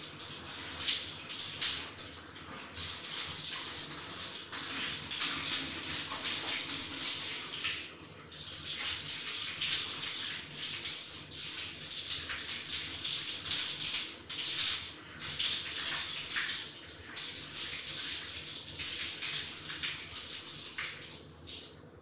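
Tap water running and splashing as a thin mesh air-conditioner filter screen is rinsed under it. The flow wavers in strength and stops near the end.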